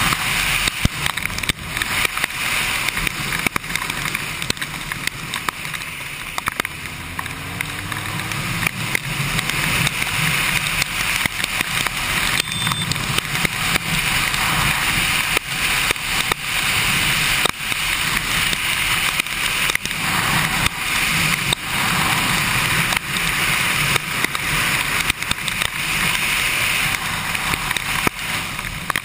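Kawasaki Ninja sport bike riding in heavy rain: a steady rush of wind and tyre spray over the low hum of the engine, with frequent sharp ticks of raindrops striking the camera.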